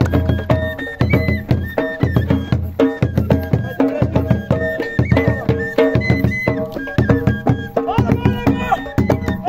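Traditional folk music played live: a frame drum and hand clapping keep a steady beat under a men's group chant in held notes.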